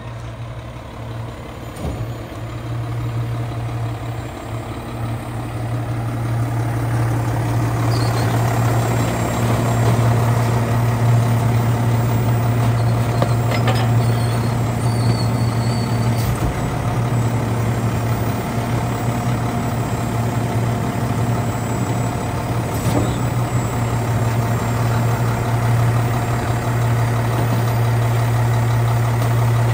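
Mack LR McNeilus garbage truck's engine idling steadily with a low hum, growing louder over the first several seconds, with a few faint knocks.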